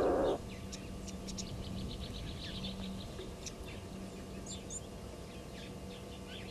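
Small birds chirping and calling, many short high notes scattered throughout, over a faint low hum. Just after the start, the tail of a loud harsh noise cuts off abruptly.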